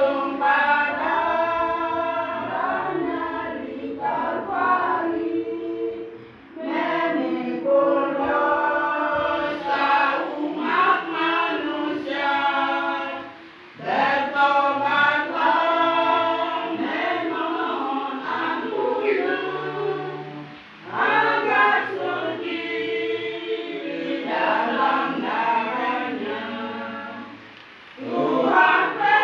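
A choir singing in sustained phrases, with brief pauses for breath between them about every six or seven seconds.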